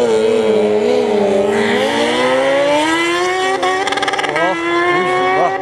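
Yamaha MT-10's crossplane inline-four engine under throttle, its pitch holding for a second or so, then climbing steadily over the next few seconds, with a few short blips near the end.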